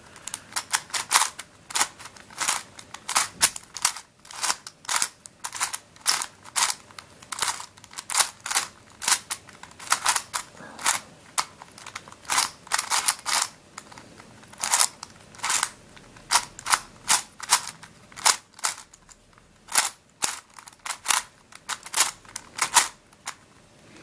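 Witeden Mixup 3x3 puzzle cube being scrambled by hand: its plastic layers click and clack sharply as they are turned, a few irregular clicks a second.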